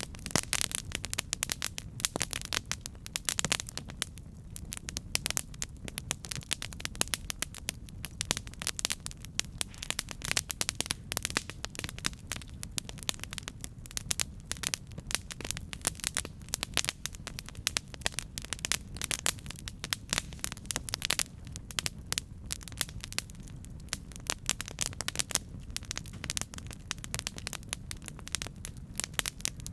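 Campfire burning: dense, irregular crackling and popping of burning wood over a steady low rumble of the flames.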